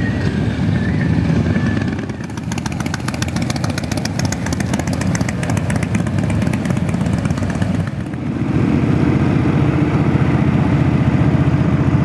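Motorcycle engines running. From about two and a half to eight seconds a rapid ticking clatter rides over the engine sound, and after that the engine sound grows steadier and stronger.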